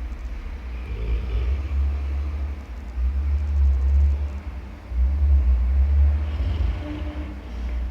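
A sleeping dog snoring: low, deep snores that swell and fade in a slow breathing rhythm, three strong swells about two seconds apart.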